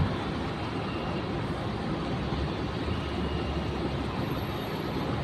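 Distant jet airliner engines, a steady even rumble and hiss, as the airliner moves along the runway at the start of a takeoff.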